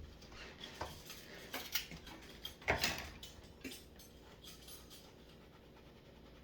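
Dishes and cutlery clattering and clinking as they are washed and handled by hand, in irregular knocks with the loudest clatter about three seconds in, then quieting.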